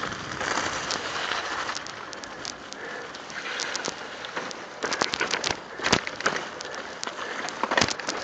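Mountain bike tyres running over a wet, slushy road, a steady hiss broken by frequent rattles and knocks as the bike rolls over rough ground, with one hard jolt about six seconds in.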